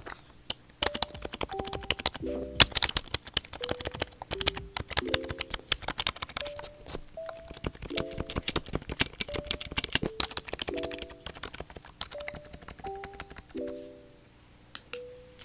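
Typing on a Logitech K850 keyboard: a fast, uneven run of key clicks that thins out near the end.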